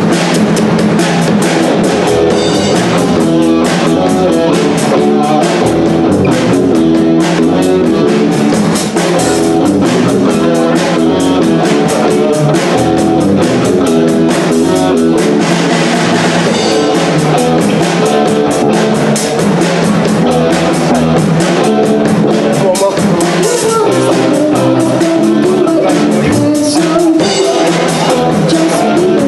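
A band playing a rock song: guitar and a drum kit, the drums hitting steadily throughout.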